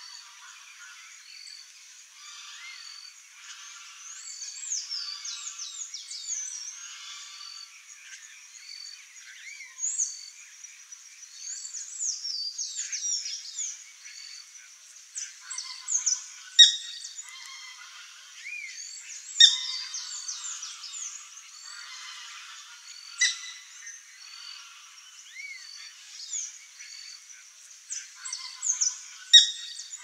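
Several wild birds calling and singing over one another: quick descending whistled notes and chirps, with a few loud sharp chirps in the second half.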